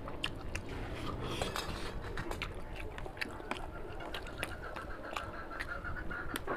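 Close-up eating sounds of a rice and curry meal: chewing with frequent short, sharp smacks and clicks.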